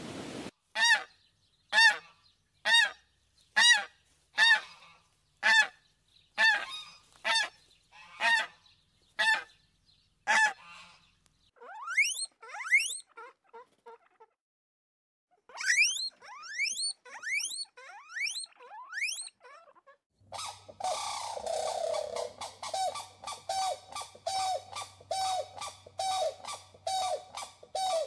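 Animal calls: a series of loud honks, about one a second, then short runs of quick rising squeaks, then faster, lower repeated calls over a faint steady hum.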